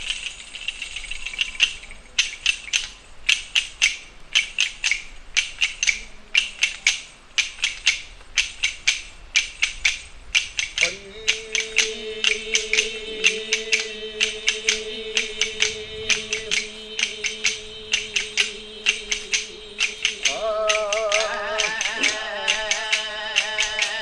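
Dashkathia, the pair of hand-held wooden clappers with small jingles used in Odia Dashkathia storytelling, clacked in a quick steady rhythm. A steady drone comes in about eleven seconds in, and a wavering held note joins near the end.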